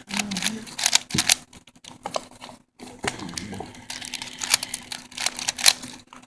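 Plastic 3x3x4 Rubik's cuboid being turned, its layers giving off a fast, irregular run of clicks and clacks.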